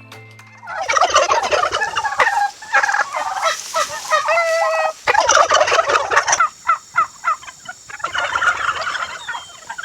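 A flock of farm poultry calling together in loud overlapping bursts of a second or two each, thinning out for a moment in the middle before another burst near the end.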